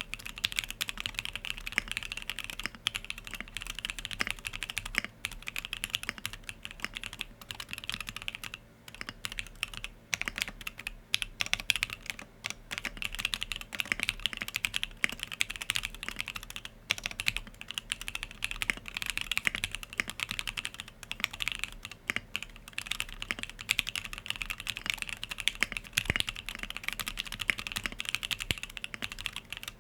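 Continuous fast typing on a Sangeo65 custom mechanical keyboard: lubed SP-Star Yanyu linear switches in an aluminium plate with plate foam, keystrokes clacking in quick succession, with a short pause about nine seconds in.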